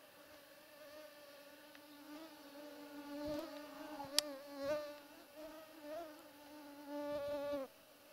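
A mosquito whining close to the microphone: a steady buzz that wavers in pitch and swells louder several times as it passes near, then cuts off suddenly near the end. One sharp click about four seconds in.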